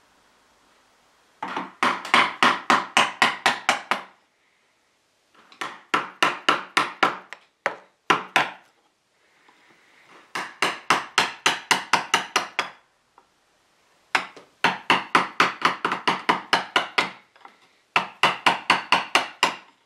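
A hand tool working wood in rapid, even strokes, about five a second, in six bursts of one to three seconds with short pauses between.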